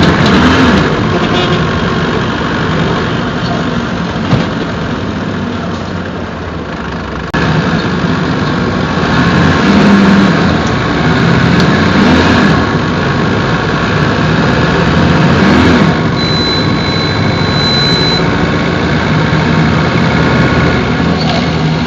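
Mercedes-Benz OF-1721 bus's OM-924LA four-cylinder turbodiesel running, its pitch rising and falling several times as it revs and settles. The sound changes abruptly about seven seconds in, and a thin high beep sounds for about two seconds near the end.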